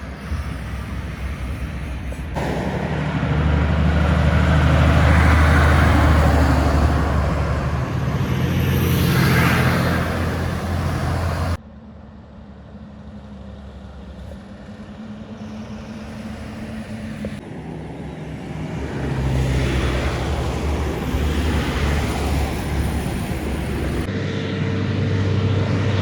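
Heavy trucks' diesel engines and tyres as trucks drive past on a highway, one after another. The engine note is loud and deep, and the sound changes abruptly several times as one pass gives way to the next.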